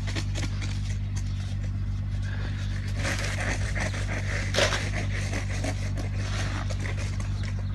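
Snow shovel scraping and crunching through snow in irregular strokes, one sharper scrape about halfway through, over a steady low hum.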